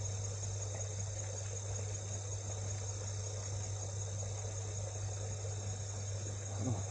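Steady high trilling of insects over a constant low hum, with a brief low sound near the end.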